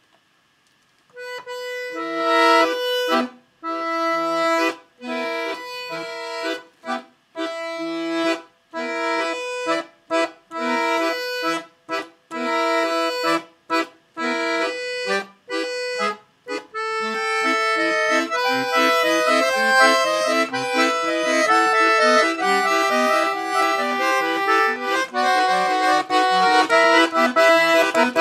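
Solo accordion music. The first half is short, detached chords with brief gaps between them; from about sixteen seconds in it becomes a continuous, faster melody over held notes.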